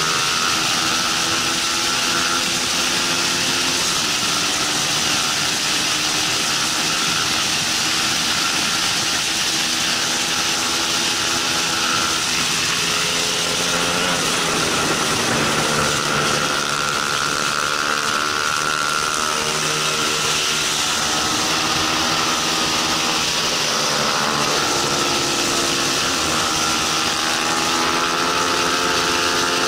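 Bajaj Pulsar 200 NS single-cylinder engine running hard at racing revs, heard from on board with heavy wind rushing over the microphone. The engine's pitch rises and falls repeatedly, with deep dips and climbs about halfway through and again near the end.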